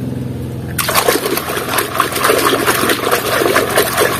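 Hands dunking and scrubbing a muddy plastic toy truck in a basin of foamy water: irregular splashing and sloshing that starts suddenly about a second in, over a steady low hum.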